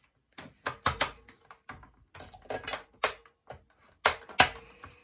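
Irregular plastic clicks and knocks as batteries are pressed into the spring contacts of a toy RC tank's battery compartment, the loudest knock near the end, over a faint steady hum.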